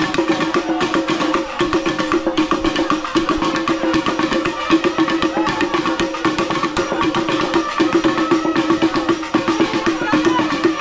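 Drum-led music: fast, dense drumming over a steady held tone.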